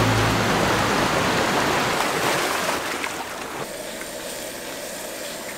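Shallow mountain stream running over rocks, a steady rush of water that drops lower about three and a half seconds in.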